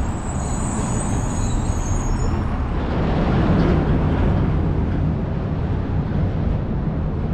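City street traffic: a steady low rumble of cars, swelling around three to four seconds in as a vehicle goes by.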